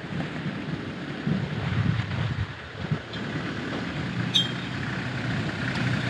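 Adventure motorcycle's engine running steadily at low speed on a dirt track, with wind noise on the microphone. A brief high chirp sounds about four seconds in.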